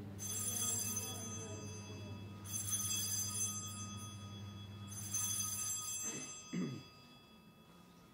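Altar bell struck three times, about two and a half seconds apart, each ring fading over a second or two: the bell rung at the elevation of the host after the consecration. A steady low hum runs under it.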